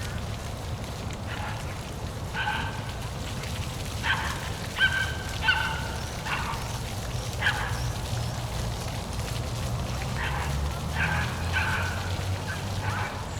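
Steady low rush of a park waterfall, with about a dozen short, pitched animal calls spread through it, several in quick succession in the middle.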